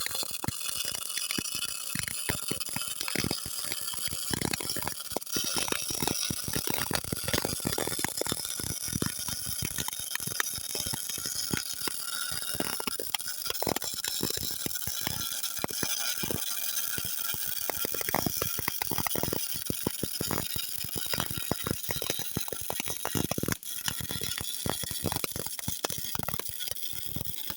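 Electric arc welding: the arc crackling and sputtering in a dense, irregular, steady crackle.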